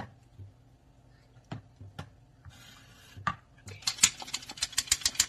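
Aluminium colander of drained kaong (sugar palm fruit) rattling as it is handled and shaken over a steel sink: a few scattered clinks, a short hiss, then from about three and a half seconds a fast run of loud metal clatter, several strikes a second.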